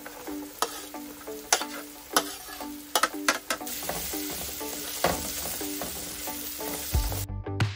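Diced potatoes dropping into a metal pot of frying onions and being stirred with a spatula: a steady sizzle with a string of knocks and scrapes against the pot. Background music with a repeating plucked pattern throughout.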